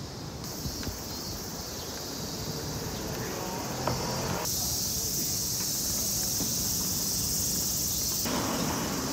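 Cicadas in chorus, a steady high-pitched buzz that gets louder about four and a half seconds in and drops back near the end.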